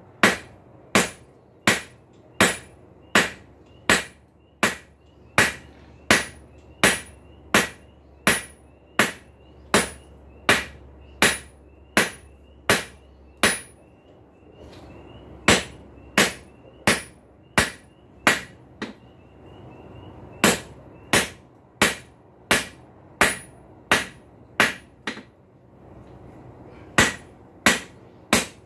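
Hand hammer striking a hot high-carbon steel bar on an anvil, drawing it down square: steady blows at about one and a half a second, each with a short metallic ring. The hammering stops briefly three times, about halfway, a little later, and near the end.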